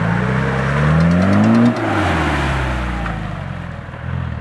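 Land Rover Discovery engine revving hard as it drives through mud, its pitch climbing for under two seconds, then dropping suddenly and falling away as it pulls off.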